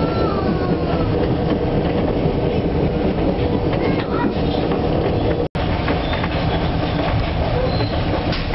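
Diesel-hauled tourist train running: a steady loud rumble of the locomotive and the wheels on the rails, with clickety-clack and a faint high wheel squeal near the end. The sound cuts out for an instant about five and a half seconds in.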